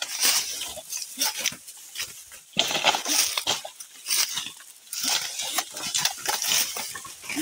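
Footsteps pushing through dry leaves, sticks and brush, with irregular crunching and rustling of vegetation throughout.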